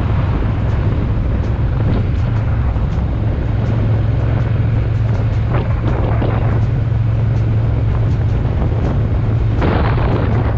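Triumph Bonneville T120's parallel-twin engine running at a steady cruise while riding, with wind rushing over the microphone. A brief louder rush comes near the end.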